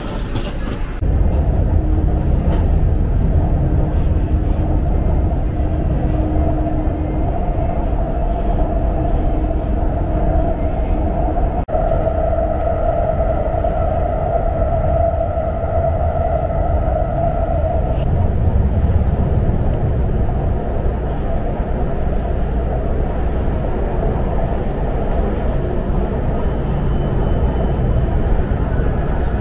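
Cabin noise of a Hangzhou Metro Line 19 train running between stations: a steady low rumble with a humming whine that grows stronger in the middle.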